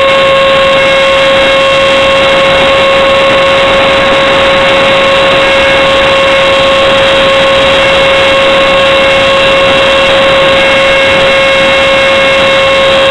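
Electric motor and fan of a radio-controlled F-18 model jet, heard from a camera mounted on the airframe: a loud, steady high whine over a rushing of air, holding one pitch throughout.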